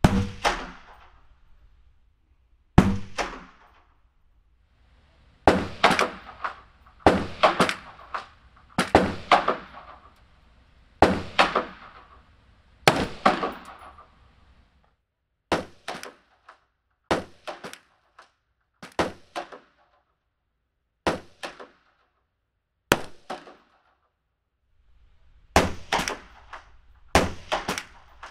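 Single gunshots about every two seconds, each a sharp crack followed by a fading trail-off, recorded close up through a recorder limiter. The middle group of shots, taken on a dynamic microphone, has shorter tails with silence between them. The first and last shots, taken on a large-diaphragm condenser, ring on longer.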